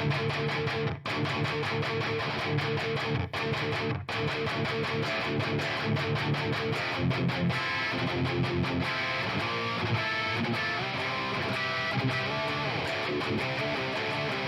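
Headless multiscale six-string electric guitar with a Mythbucker humbucker, played with an overdriven, dirty tone through a KSR Vesta prototype drive pedal. It plays a rhythmic riff of picked notes and chords, with brief breaks about one, three and four seconds in.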